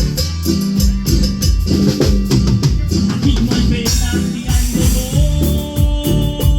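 Instrumental Latin-style band music: a drum kit and bass keep a fast, even beat with a shaker. A long held note comes in over it about five seconds in.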